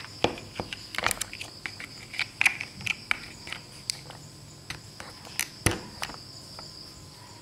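Large plastic toy building blocks clicking and clattering as hands handle them and press them together: irregular sharp clicks, several a second, with a few louder knocks.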